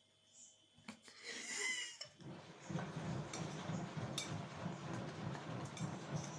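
A cat rummaging at an open refrigerator: a brief clatter of items about a second in, then steady rustling with a low pulsing underneath.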